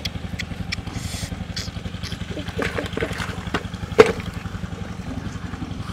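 A small engine running steadily with a fast low throb, with scattered short clicks over it and one sharp knock about four seconds in.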